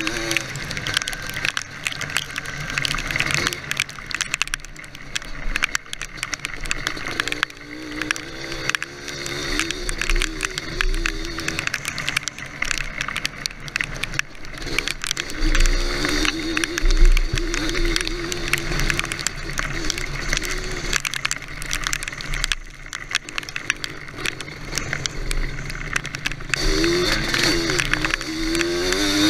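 ATV engine running and revving up and down on an off-road ride.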